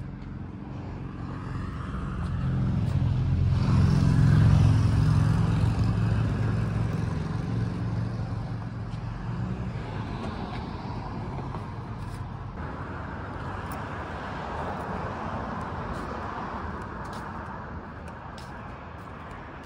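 A motor vehicle's engine passing by, swelling to its loudest about four seconds in and fading away by about ten seconds. After that comes a steady hiss.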